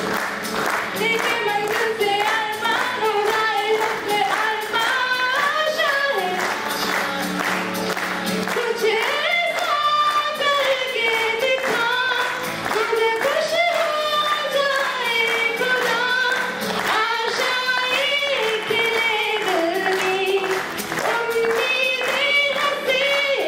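A voice singing a flowing melody with musical accompaniment; a low held drone sounds under it for the first several seconds.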